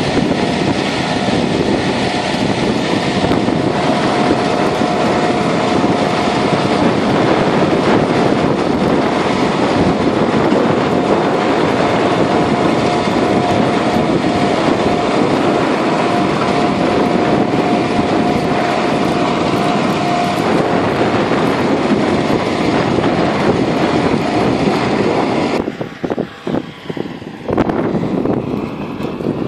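Tractor-drawn independent disc harrow working soil: a loud, steady din of the tractor and the discs and packer roller churning through the earth, with a faint steady whine through most of it and wind on the microphone. The sound drops and breaks up about 26 seconds in.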